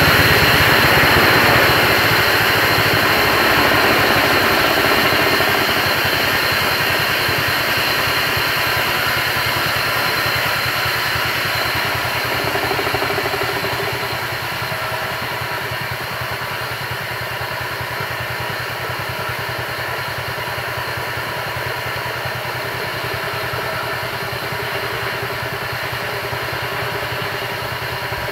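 Small engine of a portable bandsaw mill running steadily, with a hiss over its drone, growing fainter as the saw carriage travels away along the rails.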